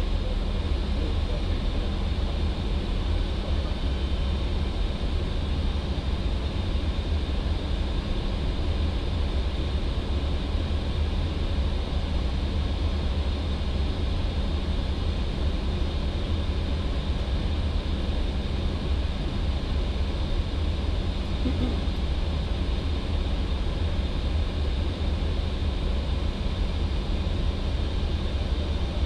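Steady flight-deck noise of an Airbus A320 in flight: an even airflow rush with a deep rumble underneath and a faint high-pitched tone.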